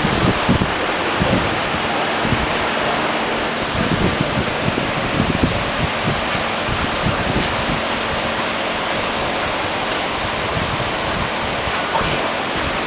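Steady rushing hiss of aquarium aeration, air bubbling up through the water from an airline, with irregular low bumps mostly in the first half.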